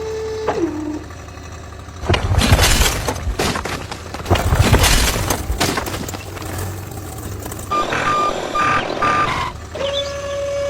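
Model construction machinery at work: a small motor hums and drops in pitch, then a loud rattling crash of loose material runs for about four seconds. Near the end come four short reversing beeps, and the motor hum starts again.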